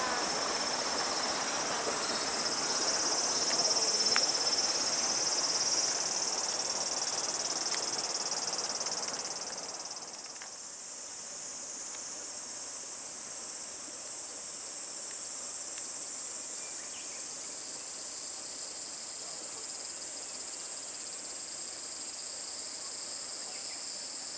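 A steady, high-pitched drone of summer insects in trees and grass. For the first ten seconds a lower, even noise sits under it; about ten seconds in that drops away and the insect pitch shifts slightly.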